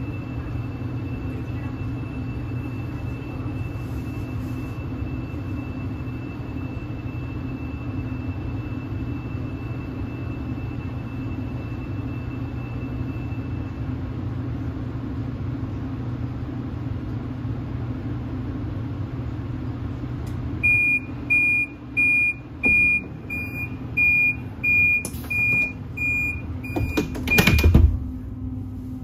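Steady low hum inside a CRH high-speed train carriage standing at the platform. About two-thirds of the way through, the door-closing warning sounds about ten even, high beeps, and it ends in a loud thump as the sliding door shuts before departure.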